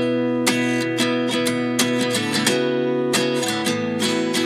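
Background music: strummed guitar chords with a steady rhythm, about two strokes a second.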